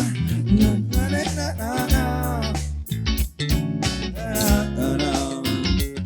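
Band music with guitar and bass and a steady low line, with a melody carried between sung lines and no words.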